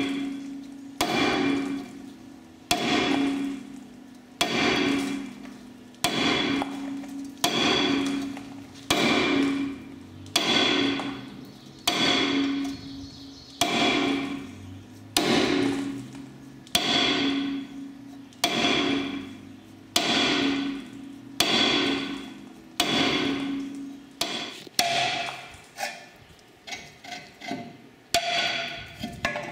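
Lump hammer striking a rear brake rotor that is rusted onto its hub, one blow about every second and a half, each leaving the disc ringing briefly. The rotor is being knocked loose from the corroded hub. Over the last few seconds the blows come lighter and less regularly.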